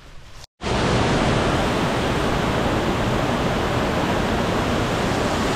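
A steady, loud rush of water falling at a waterfall, which cuts in after a short drop-out about half a second in.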